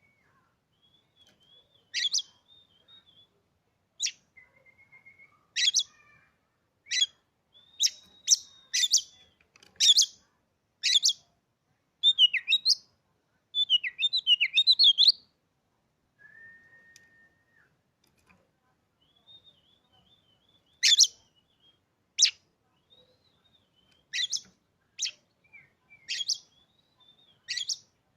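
Oriental magpie-robin (kacer) singing: loud, sharp whistled calls repeated every second or so, with a quick run of fast warbling phrases in the middle. Softer thin whistles fill the gaps, and there is a pause of a few seconds just past the middle before the sharp calls resume.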